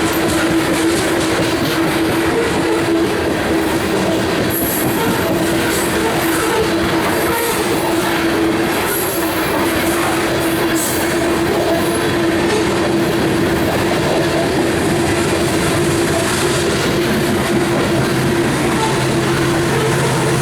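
Freight cars of a coal train rolling past, steel wheels on the rails making a steady rumble and clatter, with brief high-pitched wheel squeals now and then and a steady ringing tone underneath.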